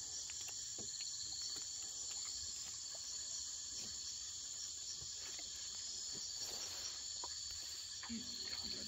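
Steady night chorus of crickets and other insects, a continuous high-pitched trill, with a few faint clicks and a brief low murmur of voices near the end.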